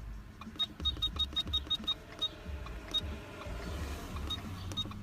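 Short, high electronic beeps from an Advanced Diagnostics handheld key programmer as its buttons are pressed to scroll through the menu. There is a quick run of about nine beeps in under two seconds, then a few single beeps.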